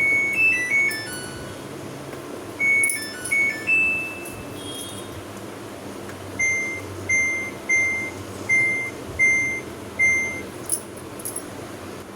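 Control-panel beeper of a Samsung top-load washing machine: a short chime tune of stepped high notes, a second short tune a few seconds later, then six identical single beeps evenly spaced, a little under a second apart.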